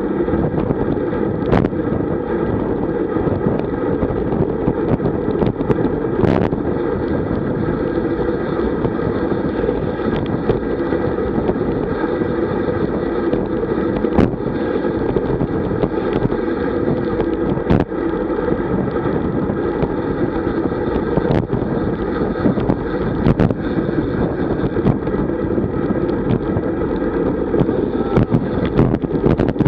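Wind buffeting the microphone of a camera on a road bike moving at about 40 km/h, a steady rush with scattered sharp knocks.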